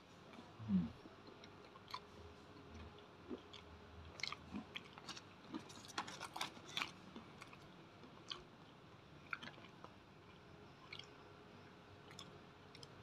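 Close-up chewing of crisp fried batagor dumplings, with scattered crunchy crackles that come thickest in the middle. There is a soft low thump about a second in.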